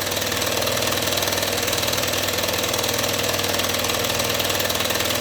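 Old variable-speed scroll saw running, a steady fast reciprocating rattle. It keeps running without tripping now that it has been slackened off, which the owner takes to mean it had been set too tight.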